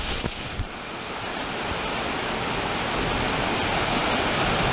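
A steady rushing hiss that grows slightly louder, with a few sharp clicks in the first second.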